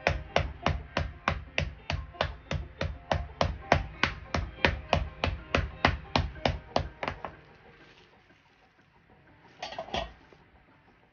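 Wooden rolling pin beating chicken thigh through cling wrap on a wooden cutting board: steady thuds about four a second, stopping about seven seconds in. Near the end, a short rustle of the plastic wrap being lifted off the meat.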